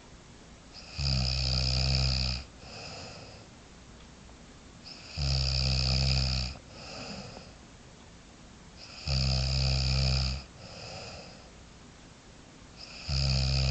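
Snoring in a steady rhythm: four loud snores about four seconds apart, each a low buzz of about a second and a half, followed by a shorter, softer sound.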